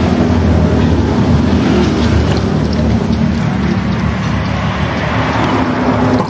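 A steady, loud, low engine drone.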